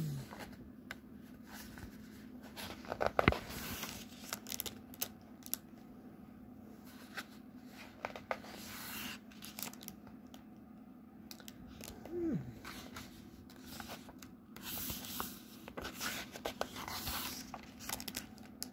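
Pages of a hardcover picture book being turned by hand: paper rustling and swishing with small taps and clicks of handling. This happens a few times, the loudest rustle about three seconds in.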